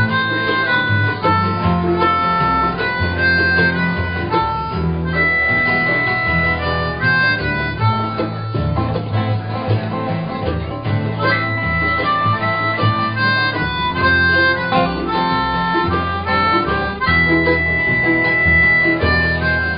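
A live acoustic band plays an instrumental passage: strummed acoustic guitars and a low bass line under a lead melody of held notes.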